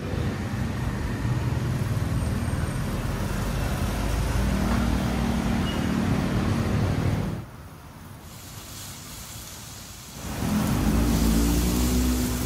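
Road traffic: motor vehicle engines running as they pass close by, swelling and fading. It drops away for about three seconds past the middle, then another vehicle's engine comes up loud near the end.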